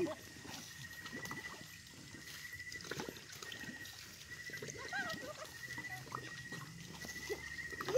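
Night insects trilling at one steady high pitch in repeated pulsed runs. There is a single sharp click about three seconds in.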